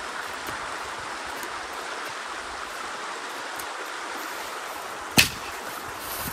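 Steady rushing of a shallow creek, with one sharp click about five seconds in.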